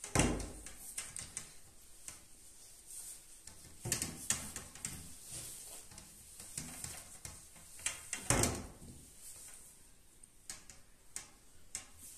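White metal-reinforced plastic hose being pushed and twisted onto a metal tube of a clothes drying rack: irregular rubbing and scraping with scattered clicks, louder near the start, about four seconds in and about eight seconds in.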